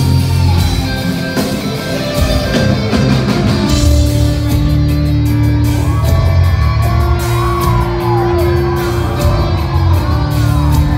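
Rock band playing live and loud, with drums keeping a steady cymbal beat under sustained low guitar and bass notes; a voice sings over it from about halfway through.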